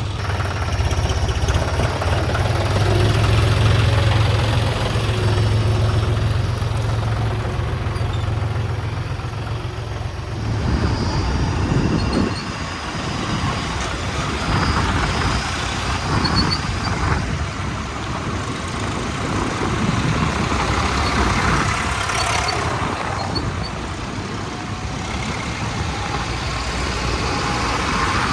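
Diesel engines of a backhoe loader and tractors running. The first ten seconds are a steady low hum; from about ten seconds in the engines work unevenly, with repeated knocks and clatters as the machines load mud.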